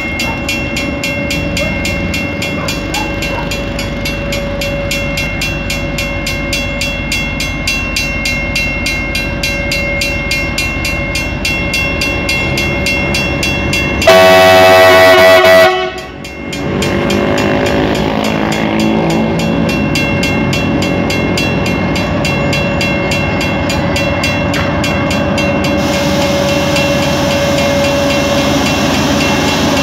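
CRRC Ziyang CDD6A1 diesel-electric freight locomotive approaching at low speed and running past, its diesel engine running steadily. About halfway through it gives one loud horn blast lasting about a second and a half.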